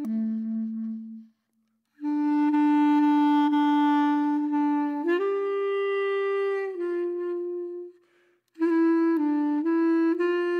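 Background music: a slow woodwind melody of long held notes, breaking off briefly twice.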